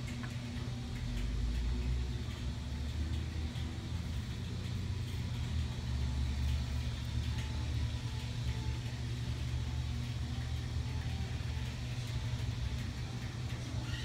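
A steady low hum with a deep rumble under it and no clear changes.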